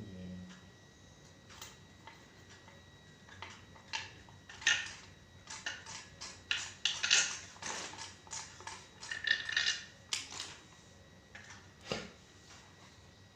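Hard metal and plastic parts being handled and fitted together while an air rifle and its accessories are assembled: a run of irregular clicks, taps and short clattering rattles, busiest in the middle.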